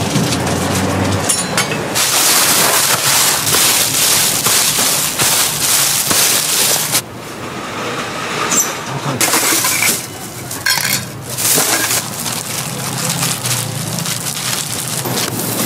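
Oil sizzling and crackling on a hotteok griddle, a dense steady hiss. It thins out for a couple of seconds about seven seconds in, then comes back.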